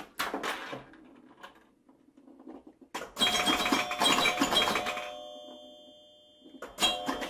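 Bright chime-like ringing: a quick run of struck tones about three seconds in that ring on and slowly fade, then another struck chime near the end.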